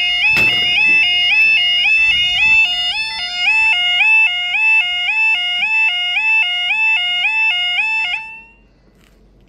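Level crossing audible warning alarm: an electronic two-tone yodel stepping between a low and a high note about twice a second, with a knock about half a second in. The alarm cuts off suddenly about eight seconds in, as the barriers come fully down.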